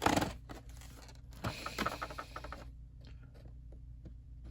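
Cardboard toy box being opened by hand: cardboard scraping and rubbing, loudest right at the start, with a few more scrapes and clicks around the middle.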